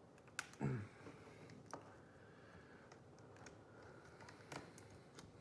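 A few faint, sharp clicks from a slim pry tool worked in behind a laptop LCD panel to cut through its adhesive tape.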